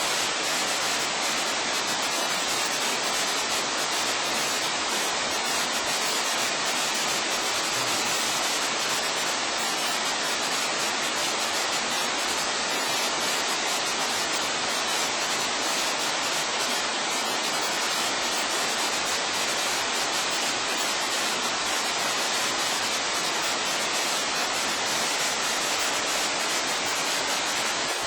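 Waterfall running steadily: an even, unbroken hiss of falling water with little deep rumble.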